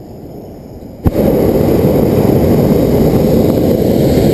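Hot-air balloon's propane burner firing: a sharp click as it lights about a second in, then a loud, steady roar.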